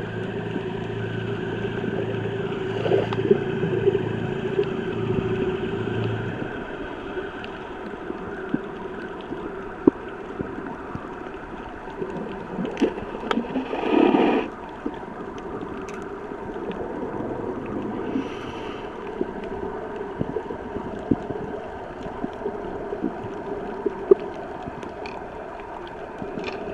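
Underwater sound picked up by a camera below the surface: a steady hum with several held tones and scattered sharp clicks, a low rumble fading out about six seconds in, and a louder gurgling rush lasting about a second around the middle.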